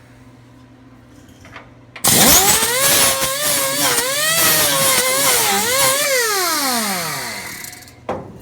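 Electric angle grinder switched on about two seconds in, spinning up with a rising whine, its pitch dipping and wavering as it is pressed onto the welded sheet metal to clean up the weld, then switched off and winding down with a long falling whine. A single knock near the end.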